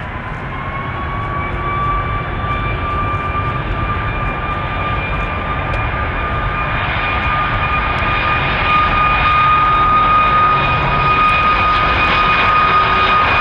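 Jet engines of an Airbus A340-600, its four Rolls-Royce Trent 500 turbofans, running with a high whine over a broad rush. The whine rises in pitch over the first couple of seconds, then holds steady while the sound grows steadily louder.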